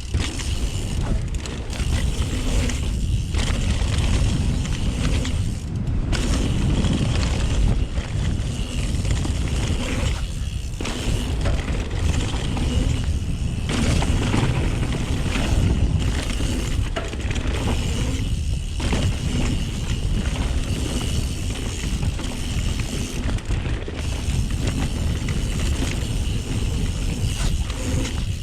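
YT Jeffsy mountain bike riding fast down a dirt trail, heard from a chest-mounted camera: steady wind rumble on the microphone over tyre noise and the chain and frame rattling over bumps. The noise eases briefly several times.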